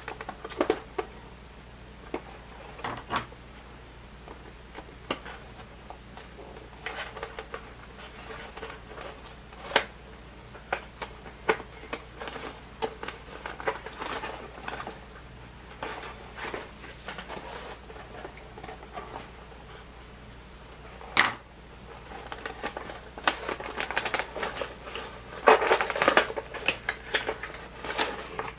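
Toy packaging being unpacked by hand: irregular clicks, taps and rustles. There is a sharp click about two-thirds of the way through and a denser patch of rustling near the end.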